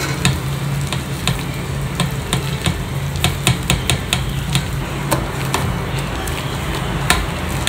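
Vada batter being mixed and beaten by hand in a stainless steel bowl, aerating it until fluffy: irregular wet slaps and clicks against the bowl, over a steady low hum.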